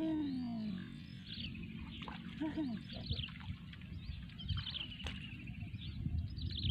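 Birds chirping in short, high calls that rise and fall, with a rapid trill of repeated notes about halfway through.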